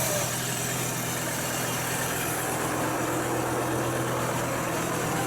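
Diesel vehicle engine running at a steady, unchanging speed, a constant low hum.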